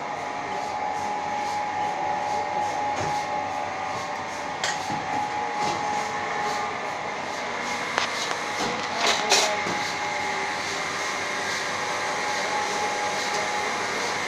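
Vertical insert moulding machine running with a steady mechanical hum that holds a couple of steady tones. A few short knocks and clanks come about a third of the way in and a little past the middle, the loudest ones then.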